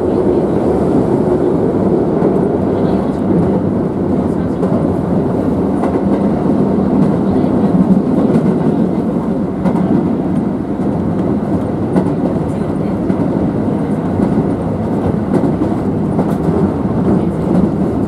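Keisei Oshiage Line train running at speed, heard from inside the car: a steady rumble of wheels on rail with a few sharp clicks.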